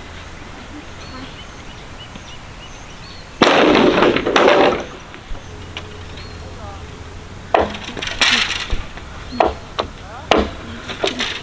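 A long bamboo pole dropped onto a pile of bamboo poles, a loud clatter lasting over a second about three seconds in. Later a machete strikes and hacks at the bamboo: one longer burst, then a run of short, sharp knocks near the end.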